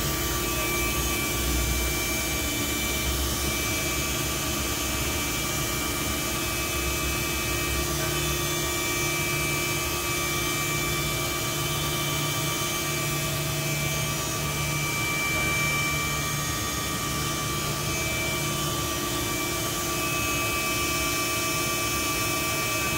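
Mazak Integrex e-1850V/12 II multitasking CNC machine running: a steady mechanical hum and noise with several constant high tones over it.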